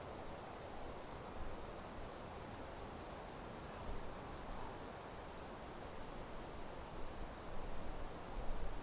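Insects chirring steadily in a high, rapidly pulsing drone, with low rumbles on the microphone that grow stronger near the end.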